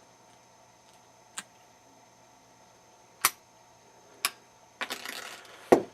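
Lock picking: a pick scraping the pins of a lock cylinder under a tension wrench, heard as a few sharp metallic clicks a second or so apart, a brief scratchy scrape near the end, then a louder click.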